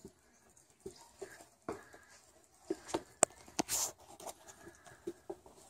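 Two tabby cats play-wrestling on a woven rug: scattered soft scuffles and thumps of paws and bodies, busiest around the middle, with one sharp click and a brief rush of noise there.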